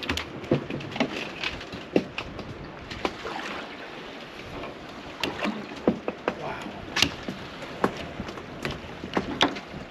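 Irregular knocks and clicks on a small boat, with water lapping at the hull.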